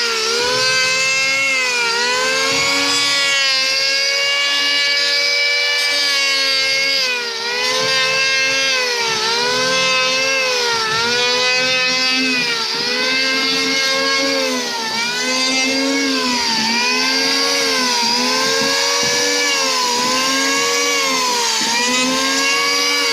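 Handheld electric power tool running continuously, its motor whine dipping in pitch and recovering about once a second as it bears into the work and eases off, with a steady hiss on top.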